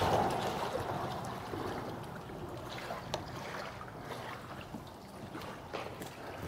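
Small waves lapping and slapping against a bass boat's hull, with scattered small splashes and ticks. A rush of wind noise dies away over the first couple of seconds.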